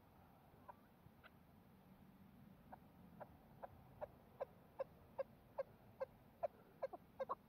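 Chukar partridge calling: a run of short clucking notes, a few faint ones at first, then a steady series of about two or three a second that grows louder and quickens near the end.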